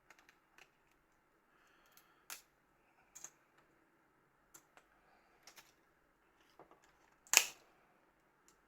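Scattered small clicks and taps of plastic phone parts being handled. One sharper click comes about seven seconds in.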